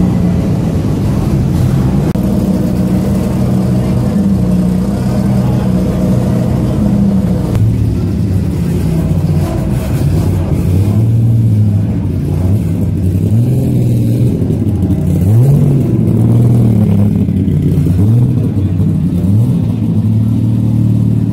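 Alfa Romeo GTV6 touring car's V6 engine idling with repeated throttle blips, the revs rising and dropping back about once a second. Before that, for the first several seconds, a steady idling engine.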